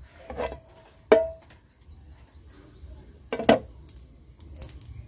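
Nonstick frying pan of hot ghee and cumin seeds being handled on the burner: a few metal clinks and knocks. The loudest is a sharp ringing clink about a second in, and another knock comes about three and a half seconds in.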